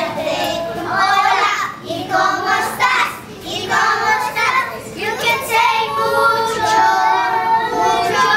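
Two young girls singing a song together in phrases, with short breaks between them.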